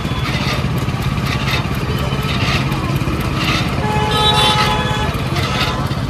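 Motor-driven sugarcane juice crusher running: a steady low engine drone, with a rasp about once a second as the rollers work. A brief higher tone sounds about four seconds in.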